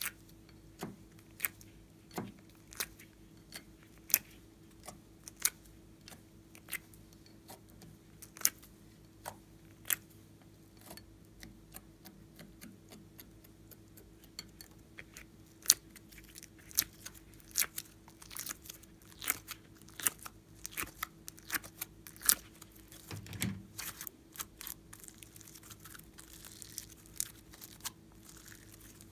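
Slime being peeled out of a silicone mold and handled: sharp sticky clicks and pops, about one a second at first and coming thick and fast in the second half, over a faint steady hum.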